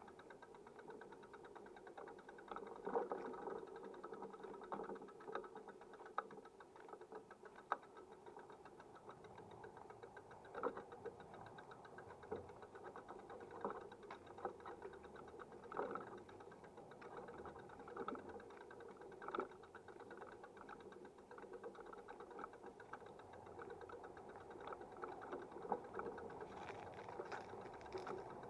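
A faint, steady mechanical running noise with a fast, fine rattle and a sharper knock every two to three seconds.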